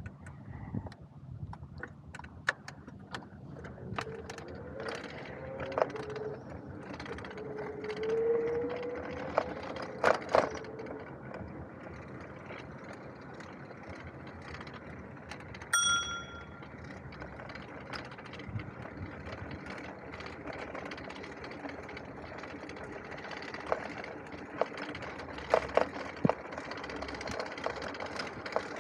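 Bicycle riding over concrete: a steady rolling noise with many sharp rattling clicks and knocks from the bike and its front basket. A wavering tone comes and goes between about 4 and 11 seconds in. A single short bicycle bell ding sounds about 16 seconds in.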